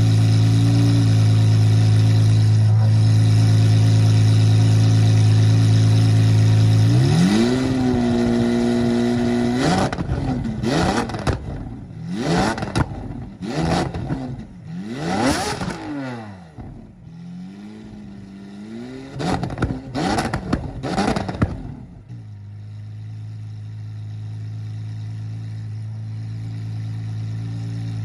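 Lamborghini Aventador SVJ's naturally aspirated V12 idling steadily, then raised to a held higher speed about seven seconds in, followed by a string of sharp free revs that rise and fall quickly before it settles back to idle.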